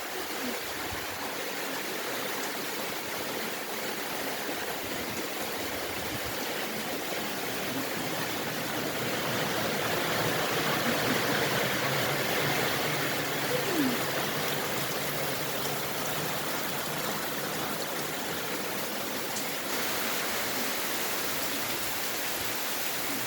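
Flowing stream water rushing steadily, swelling a little about halfway through.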